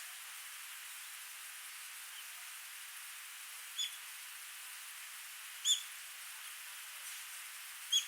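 Small stream running with a steady hiss of water, and a bird giving three short, high chirps about two seconds apart, starting about four seconds in.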